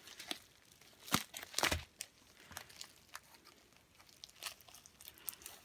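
Plastic packaging being handled: a few short crackles and crinkles with quiet gaps between them.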